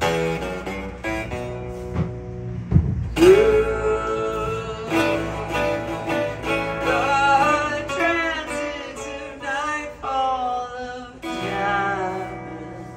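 Solo acoustic guitar playing with a wordless vocal line over it, the voice gliding up into long held notes. A low thump about three seconds in.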